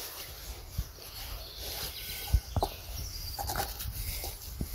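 Outdoor ambience with a steady high hiss, a few short soft thumps and taps scattered through, and faint high chirps.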